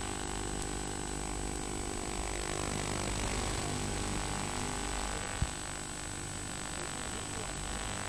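Steady hiss and mains hum from worn analogue videotape audio, with a thin high whine over it. A single short click comes about five seconds in.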